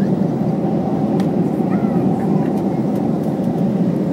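Airliner cabin noise: a steady, even rushing hum from the plane's engines and airflow.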